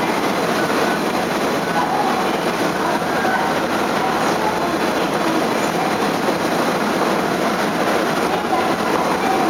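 Steady running noise aboard a ferry under way: the ship's engine and rushing water blended into one even rumble.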